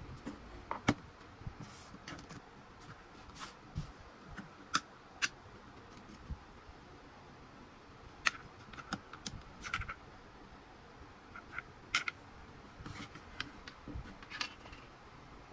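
Scattered light clicks and taps, irregularly spaced, from a plastic eloop power bank and its built-in charging cables being handled, the cable plugs pulled from their slots.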